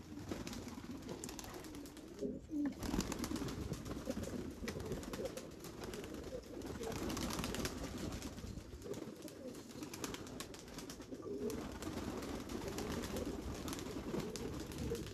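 Many domestic pigeons cooing together in a low, wavering murmur, with a burst of wing flapping about two to three seconds in as a bird flies out of its nest box.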